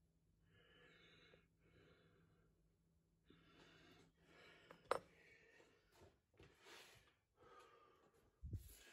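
Near silence: faint room tone with soft hissy swells, one sharp click about halfway through and a brief low thump near the end.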